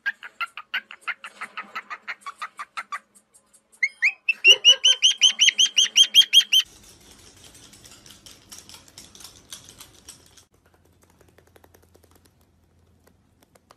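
Cockatiel chirping in rapid strings of short, repeated calls: a softer run at first, then a louder, faster run about four seconds in that stops abruptly near the seven-second mark, leaving only faint scratchy clicks.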